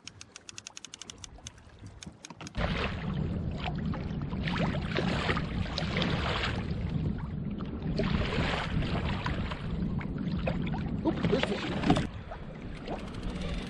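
A fishing reel's clicker ticking fast as line is let out with the drag loosened, the ticks thinning out. About two and a half seconds in it gives way to louder water sloshing and wind noise on the kayak, coming in uneven surges.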